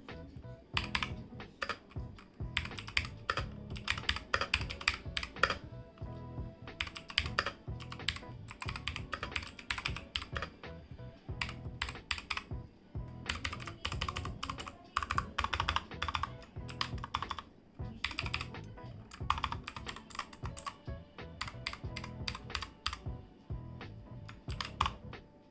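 Typing on a Portronics Hydra 10 mechanical keyboard with blue switches: runs of quick, sharp key clicks with brief pauses between them, a sound test of the switches.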